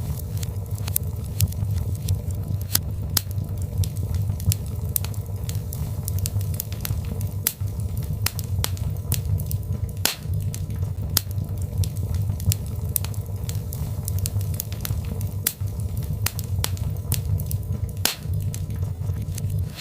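Birchwood fire crackling in a fireplace, with frequent sharp pops and snaps at irregular intervals over a steady low rumble.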